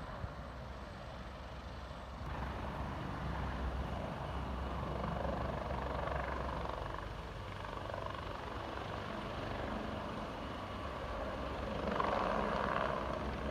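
Helicopter running close by, a steady low rumble of rotor and engine. It grows louder about two seconds in and swells again near the end.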